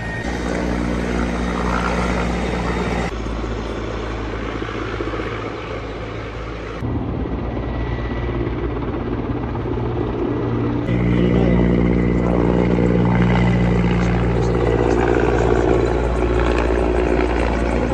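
Helicopter rotor and engine running steadily, a low droning hum. It changes abruptly about 3, 7 and 11 seconds in, as if across several clips.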